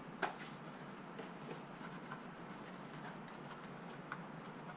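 Faint clicks and light handling noise from a small cardboard parts box being picked up and turned over in the hands, over quiet room tone; the clearest click comes just after the start.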